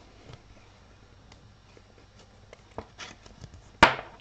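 Quiet handling of trading cards and plastic card sleeves, with a few small clicks and one sharp tap near the end.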